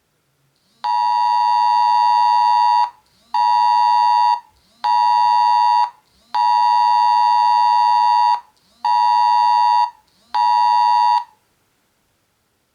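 Oppo AX7 smartphone sounding the Emergency Mobile Alert attention tone for an incoming emergency alert. The loud, steady beep comes in a long, short, short pattern, given twice for six beeps in all.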